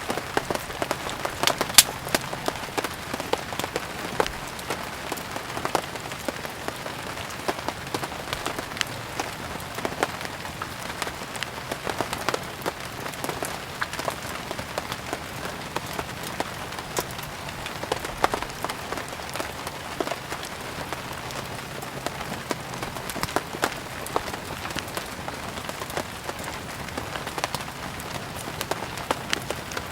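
Steady rain falling with firewood crackling on a fire: an even hiss with frequent sharp, irregular pops and snaps.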